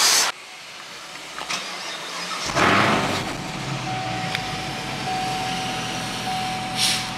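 Chevrolet Camaro ZL1's supercharged V8 starting about two and a half seconds in with a brief loud flare, then idling steadily. A steady electronic tone, broken by short gaps, sounds over it from about four seconds in.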